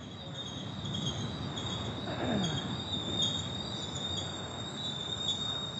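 Double-stack intermodal freight train's brakes squealing as it rolls past after an emergency stop: a steady high-pitched squeal over the rumble of the cars on the rails.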